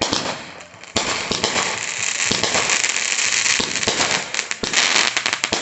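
Fireworks going off: a sharp pop about a second in, then a dense run of rapid crackling that lasts most of the rest.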